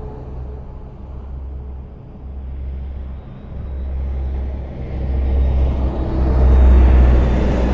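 Highway traffic: a steady low rumble of engines and tyres, building over the last few seconds to its loudest as a vehicle draws close and passes.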